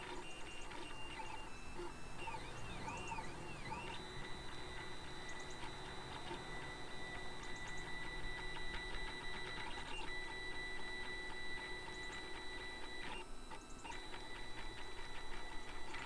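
Printrbot Simple Metal 3D printer at work, its stepper motors whining as the print head and bed move. For the first few seconds the whine sweeps up and down in pitch. It then settles into steady high tones that break off briefly about thirteen seconds in and resume.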